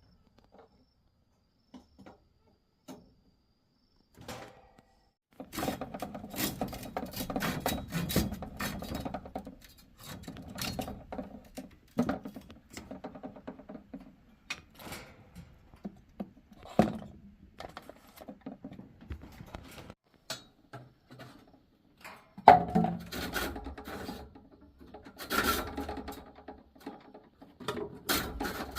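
Irregular knocking, rubbing and scraping of things being handled, like wood, in short runs with pauses, with one sharper knock about two thirds of the way in. It starts after a few nearly silent seconds.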